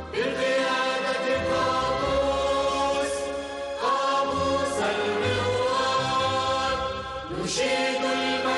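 A choir singing a patriotic Omani national song with instrumental accompaniment, in long held phrases; new phrases come in about four seconds and seven and a half seconds in.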